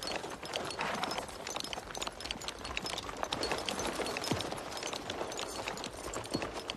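Horses galloping: a quick, irregular clatter of hoofbeats.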